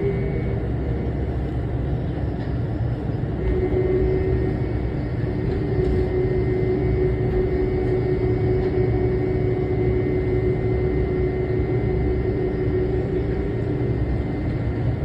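Inside a CDGVAL automated rubber-tyred shuttle train running between stations: steady rumble of the running gear, with a motor whine that falls at the start and then holds one pitch from about three and a half seconds in until near the end.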